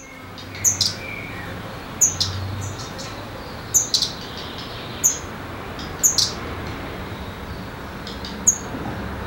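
Small songbird chirping: short high chirps, singly or in pairs, about every second or two, over a steady low background hiss.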